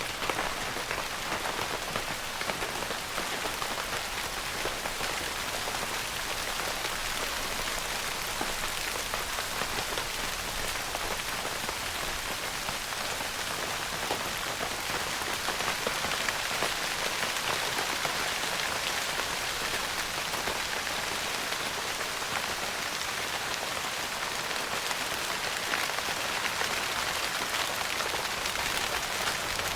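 Steady rain pattering on a tent's fabric roof, a dense even hiss of fine drop ticks.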